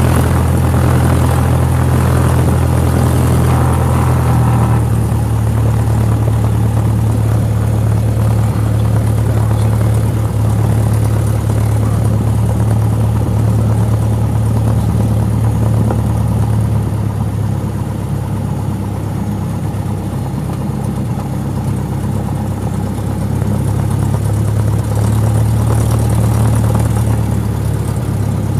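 Single-engine light aircraft's piston engine and propeller running at low taxi power, heard from inside the cockpit as a steady low drone. It eases off a little past the middle and picks up again near the end.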